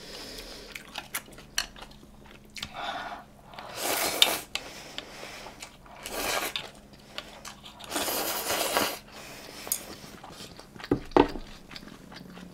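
Cutlery clinking and scraping against dishes during a meal, with a few louder noisy stretches of about a second each.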